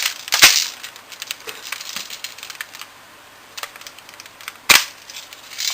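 Handling noise from an airsoft MP5 SD6 replica being turned over and worked: scattered plastic and metal clicks and knocks, with a sharp knock about half a second in and another near the end.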